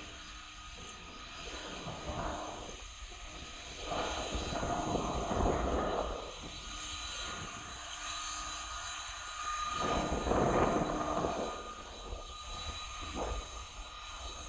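Jet engines of an Asiana Airlines Airbus A330-300 taxiing, with a steady high whine. A louder rushing noise swells twice, about four and ten seconds in.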